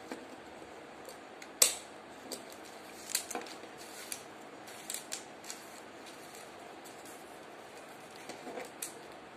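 A handheld stapler snapping shut once through paper strips about a second and a half in, followed by a few softer clicks and knocks as paper strips and the stapler are handled and set down on a table, with light paper rustling.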